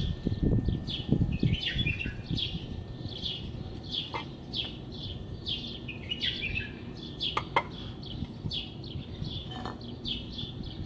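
Small birds chirping over and over in short falling chirps. Low handling noise in the first second or two, and a couple of sharp clicks as the brake caliper parts are handled.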